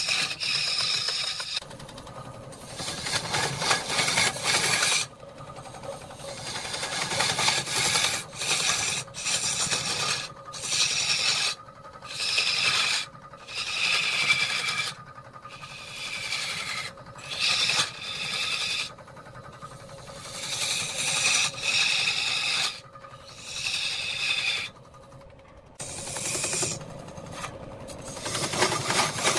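Turning tool scraping a large spinning wooden cylinder on a lathe, in repeated rasping passes a second or so long with short breaks between them.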